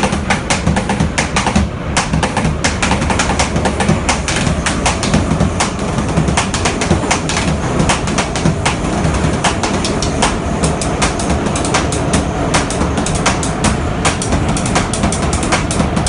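Fast drumming with sticks on two large plastic buckets, a dense run of sharp strikes, over the steady rumble and clatter of a moving subway car.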